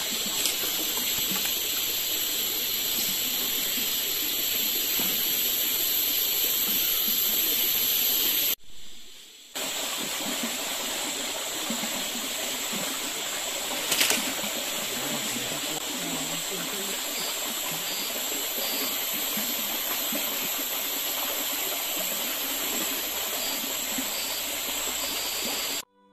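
Steady rush of flowing water from a forest spring, with a high steady hiss above it. The sound drops out briefly about nine seconds in, and a single short click comes at about fourteen seconds.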